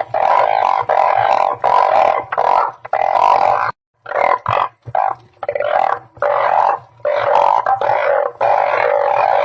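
Chorus of truncate-snouted burrowing frogs (Glyphoglossus molossus) calling, many loud droning calls overlapping with a short break a little under four seconds in. This is the breeding call used as a lure to draw the frogs in.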